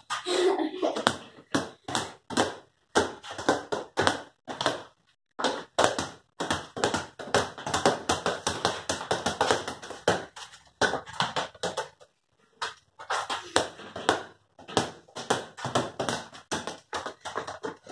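Two small rubber play balls bounced by hand on a concrete floor, a quick uneven run of bounces from the two balls out of step with each other, with a short pause about twelve seconds in.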